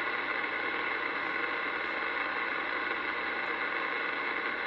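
Steady rushing noise from a CB radio's speaker: a strong station holding its microphone keyed without talking, its signal pegging the meter, so the background noise of the transmitting vehicle comes over the air.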